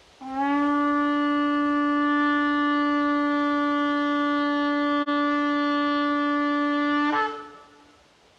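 Shofar blown in one long, steady, held blast of about seven seconds, rich in overtones. Near the end the note breaks briefly and fades away.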